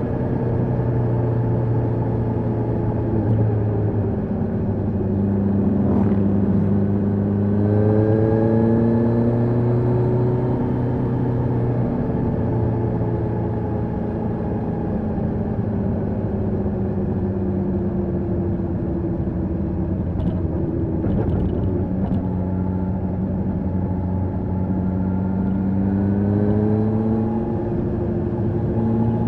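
Kawasaki H2 SX SE's supercharged inline-four engine running through an Akrapovic exhaust while riding. Its note climbs under acceleration about a quarter of the way in, eases back slowly through the middle, and climbs again near the end.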